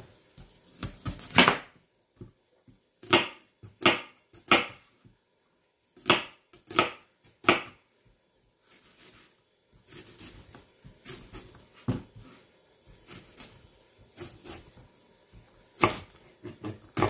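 Chef's knife cutting through an onion and striking a plastic cutting board: a series of irregular sharp knocks, clustered in the first half, then sparser and softer knife strokes.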